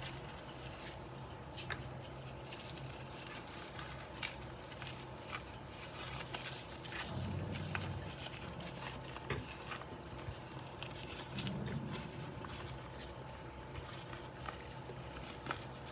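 Faint handling noises of a plastic action figure being dressed in a cloth jacket: scattered light clicks and rustles of fingers, fabric and plastic limbs.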